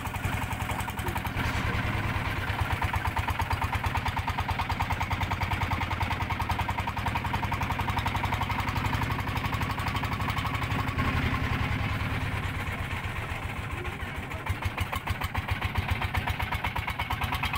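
Boat engine running steadily with a rapid, even puttering.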